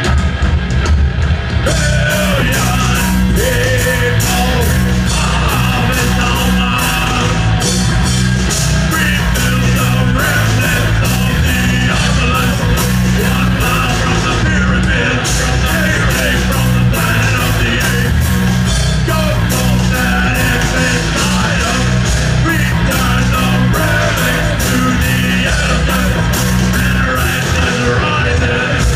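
Live heavy rock band playing loud: distorted electric guitar and bass with a driving drum kit and shouted vocals. Drums and cymbals come in about two seconds in, after guitar alone, and keep a steady beat.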